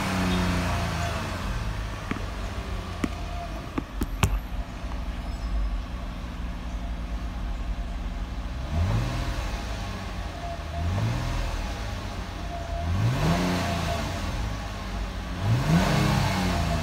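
Nissan VQ25DE 2.5-litre V6 engine, still cold, first dropping back from higher revs and then settling to a steady idle. From about nine seconds in it is blipped four times, each rev rising and falling quickly. A few sharp clicks sound about three to four seconds in.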